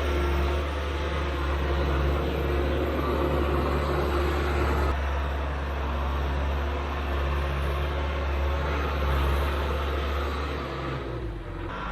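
Large diesel engine of heavy equipment running steadily. Near the end its low hum drops and changes pitch.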